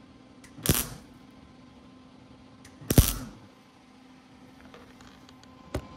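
MIG welder striking short tack welds on a steel bulkhead patch panel: two brief bursts of arc about two seconds apart, the second the loudest, and a shorter one near the end, over a steady low hum.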